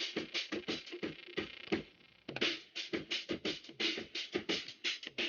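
Music with a drum beat playing through a small 808 Thump Bluetooth speaker, a quick run of sharp percussive hits.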